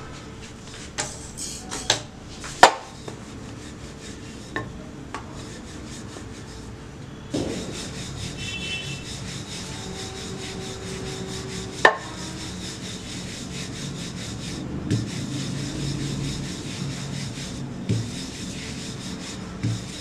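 Wooden rolling pin rolling out dough on a countertop: a steady rubbing as the pin is worked back and forth, with a few sharp knocks of the pin, several in the first few seconds and one near the middle.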